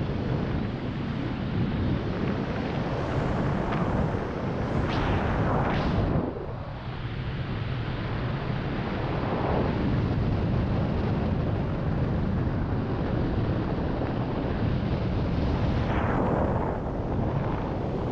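Wind rushing over the GoPro's microphone during a powered-paraglider glide with the engine throttled back to idle, swelling and easing in gusts with a brief lull about six seconds in.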